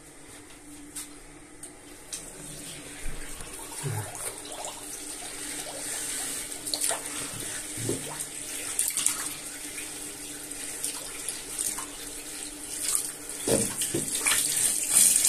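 Tap water running into a bathroom washbasin, growing louder, while a plastic drain-cleaning brush is worked in the plughole, with a few short knocks.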